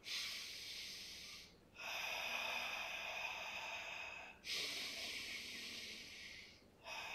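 A man's paced Pilates breathing during a single leg stretch: long breaths in and out, about two seconds each, with short breaks between, four breaths in all.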